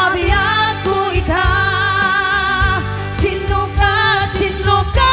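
Live band music: women singing a pop song into microphones over the backing of a Korg Pa700 arranger keyboard, with a steady beat and bass line.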